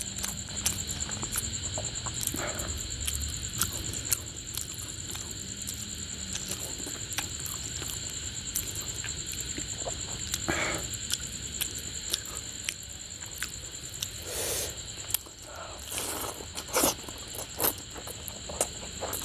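Close-miked eating sounds: wet clicks and smacks of chewing a mouthful of fish curry and rice, and the sticky squelch of fingers mashing rice with curry, with a few louder squelches later on. A steady high-pitched tone sounds behind it.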